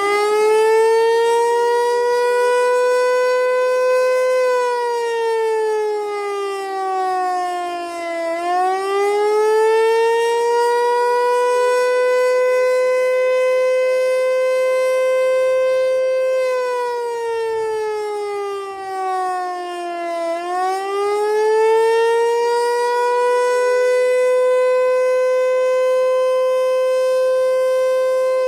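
Federal Signal Eclipse 8 tornado siren sounding its monthly test. A loud, steady siren tone sags in pitch over a few seconds and winds back up, twice, about twelve seconds apart.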